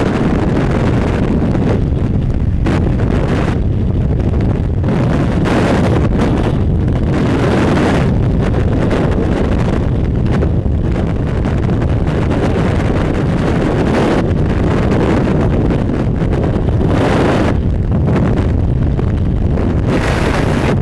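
Freefall wind blasting over a skydiver's head-mounted camera microphone: a loud, unbroken rush and rumble, its hiss surging and easing irregularly every few seconds.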